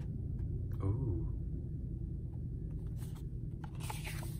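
Photobook pages being handled, with light paper rustles as a page is lifted to turn it near the end, over a steady low rumble.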